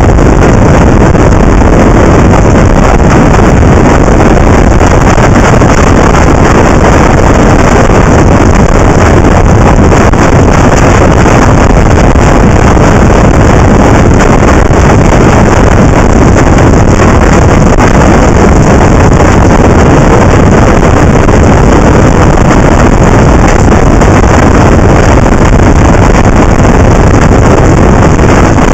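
Loud, steady wind rush on the microphone of a camera mounted on a moving motorcycle, mixed with the ride's vehicle noise, without letup.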